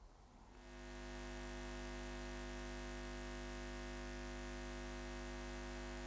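A steady low hum made of many held tones, fading in within the first second and then holding unchanged.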